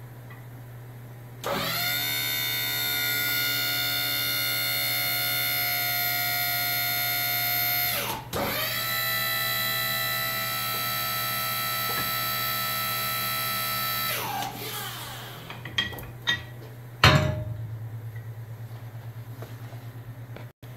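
A motor-driven machine spins up with a rising whine and runs steadily for about six seconds. It cuts out, spins straight back up, runs about six seconds more and winds down. A few seconds later a sharp metallic clank rings out.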